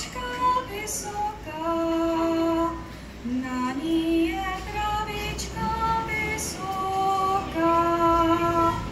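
A woman singing a Czech folk melody in long, held notes.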